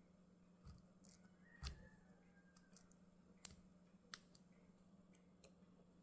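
Faint, scattered metal clicks of a pick raking the wafers of a Honda S600/S800 ignition lock cylinder, working the cylinder loose; about four light clicks, the loudest a couple of seconds in, over a faint steady low hum.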